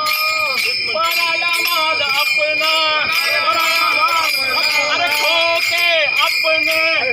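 Many pairs of taal, small brass hand cymbals, struck together in a steady beat and ringing, with a group of men's voices chanting along in unison.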